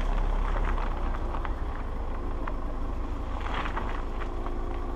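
SUV driving slowly off-road through mud, its engine running steadily with a low rumble, while scattered clicks and crackles come from the tyres working through the wet ground, heard from a camera mounted on the vehicle's outside.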